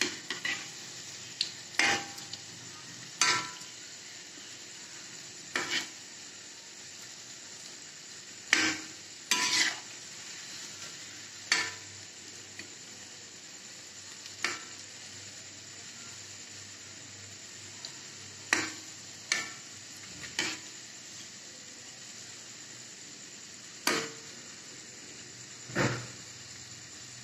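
Paneer bread pakoras deep-frying in hot oil in a metal kadai, a steady sizzle, with a metal slotted spoon clinking and scraping against the pan about a dozen times as the pakoras are turned.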